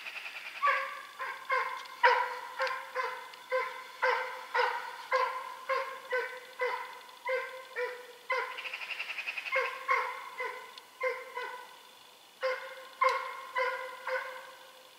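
Russian hound giving tongue on a hare's trail. A drawn-out, pulsing yelp opens a run of pitched barks, about two a second. A second long yelp comes about halfway, then more barks that stop shortly before the end.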